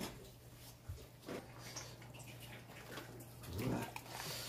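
Broth dripping and splashing faintly back into a pot as a whole boiled duck is lifted out with metal tongs, with a few light clicks of the tongs.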